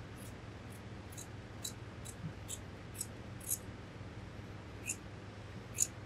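Scissors snipping through a mink fur coat's material: a string of short, crisp snips about two a second, with a brief pause about two-thirds of the way through.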